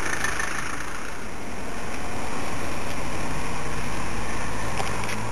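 A car driving past close by on a rain-soaked road: steady hiss of tyres on wet tarmac, with the engine's low hum growing stronger from about two seconds in as the car draws near.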